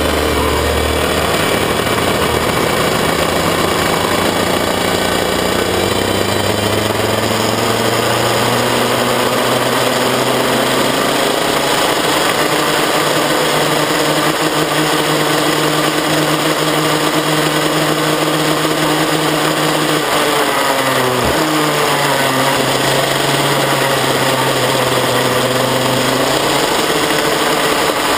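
KZ2 shifter kart's 125cc two-stroke engine, heard from onboard under hard driving. Its pitch climbs through the first ten seconds and holds high. It drops sharply about twenty seconds in as the kart slows, then climbs again.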